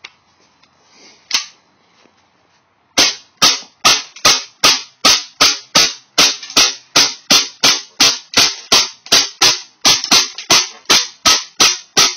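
KWA HK45 gas blowback airsoft pistol. One click about a second and a half in, then from about three seconds it fires steadily in semi-auto: sharp cracks with the slide cycling, about two to three shots a second.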